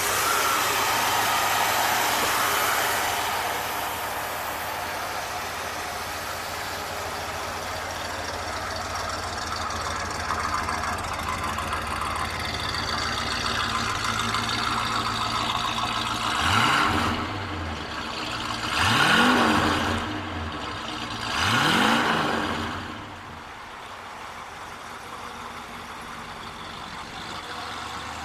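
1973 Lincoln Continental's 460 cubic inch V8 running just after starting and settling into a smooth idle, then revved three times, a few seconds apart, before dropping back to a quieter idle.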